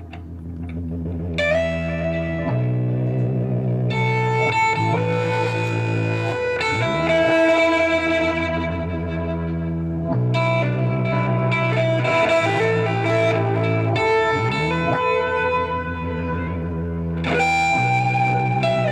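Electric guitar played through effects, with sustained low bass notes under ringing higher notes that change every few seconds.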